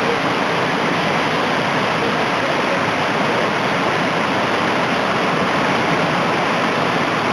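Waterfall cascading over rock: a loud, steady rush of water.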